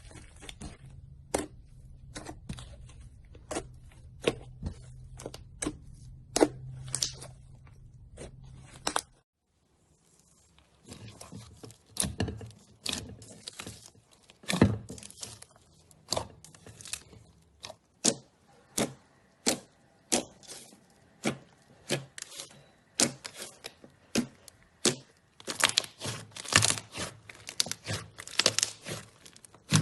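Slime being squeezed and pressed by hand, giving irregular sharp pops and crackles, about one or two a second. A low steady hum under the first part stops at a cut about nine seconds in, and denser popping follows.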